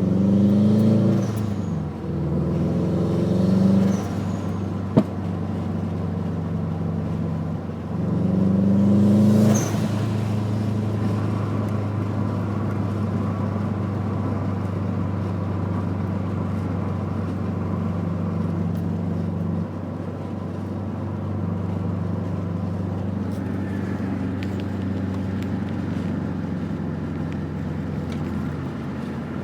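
Subaru WRX's turbocharged flat-four engine revved and let off three times in the first ten seconds, with turbo flutter and the hiss of the blow-off valve each time the throttle closes, and one sharp pop about five seconds in. After that the engine runs on more steadily.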